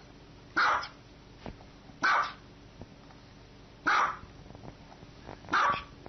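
Small white dog barking upward four times, sharp single barks about a second and a half apart.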